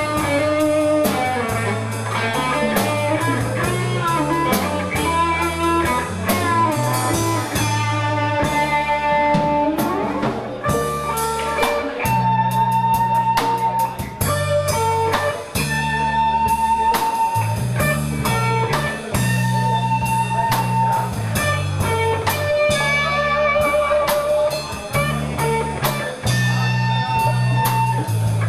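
Background blues-rock music: guitar melody over a moving bass line and a drum kit keeping a steady beat.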